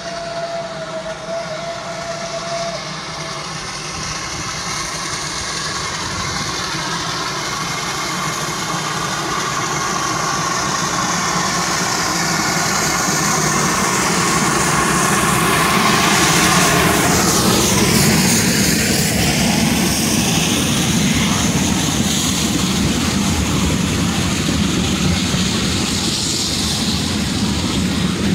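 Steam locomotive 433 001 approaching with its train, growing steadily louder, then passing close about two-thirds of the way in with a falling sweep in pitch. The historic coaches follow, their wheels clattering over the rail joints.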